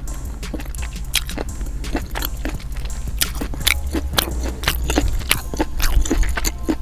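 Close-up wet chewing and mouth smacking while eating green-lipped mussels in sauce, with many short, irregular clicks. The mussels are chewy.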